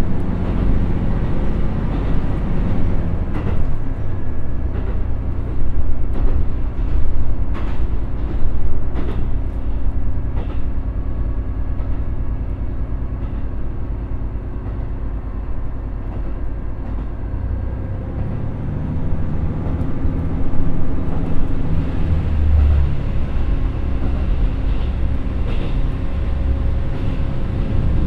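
Inside a KiHa 75 diesel railcar running at about 60 km/h: the underfloor Cummins NTA855-R1 diesel engine drones steadily, with running noise from the wheels and rails and scattered short clicks and knocks. The low rumble grows heavier and pulses in the second half.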